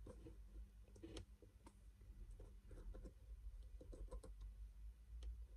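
Near silence with faint, scattered light taps and clicks of fingers handling and pressing a paper cutout onto a cardboard box lid.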